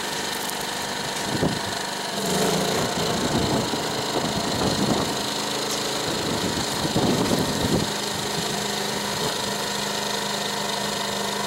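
Champion 2000-watt inverter generator running in econo mode. About two seconds in it picks up speed as a battery charger load is switched on, runs unevenly for a few seconds, then settles into a steady hum.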